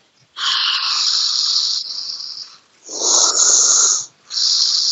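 A person snoring loudly, close up: a long hissing breath, then a shorter, rougher snore about three seconds in, then another long hissing breath.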